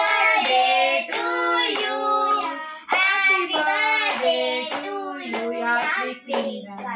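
Children singing together with hands clapping along in time. The singing trails off near the end.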